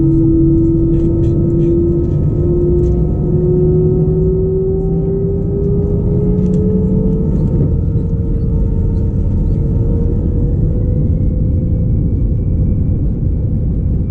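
Airbus A319's CFM56 turbofan engines spooling up to takeoff thrust, heard inside the cabin over the wing. A deep, loud roar carries a whine that rises steadily in pitch over the first several seconds and then holds. A higher whine climbs near the end as the takeoff roll gets under way.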